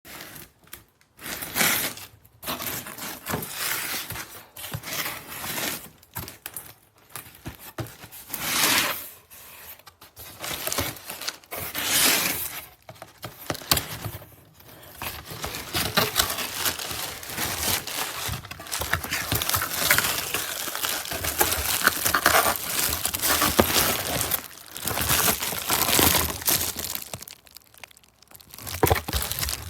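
Irregular crinkling and rustling handling noise in bursts, separated by brief pauses and dotted with small clicks. It becomes denser and more continuous in the second half.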